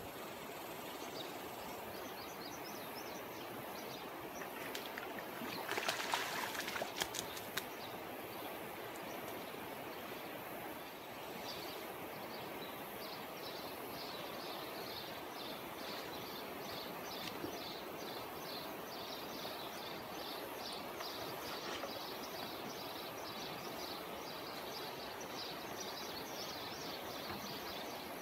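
Steady outdoor riverbank ambience with a low, even rush like flowing water. About six seconds in there is a brief rustling, handling noise. From about eleven seconds on, a high chirping repeats two or three times a second.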